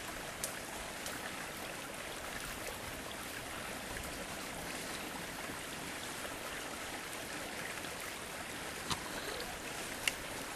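Steady rushing of a fast-flowing creek. A few short sharp clicks stand out: one just after the start and two near the end.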